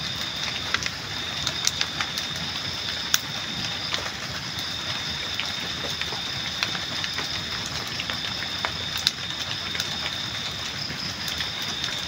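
Open wood bonfire crackling, with sharp irregular pops over a steady hiss. A steady high-pitched drone runs under it.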